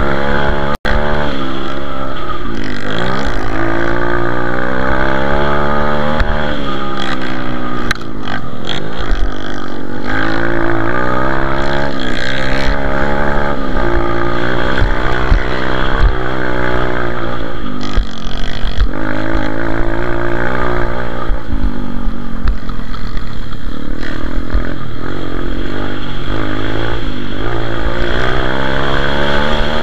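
A racing pitbike's single-cylinder engine, heard from on board, revving up and dropping back again and again through gear changes and corners. The sound cuts out for an instant about a second in.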